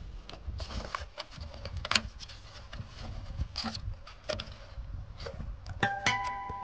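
Scattered small clicks and taps of hands handling the plastic housing of a car rear light cluster, over a low rumble. Guitar music comes in near the end.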